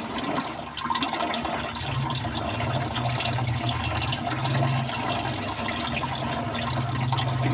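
Water running steadily in a home mud-crab rearing box, with a low hum underneath.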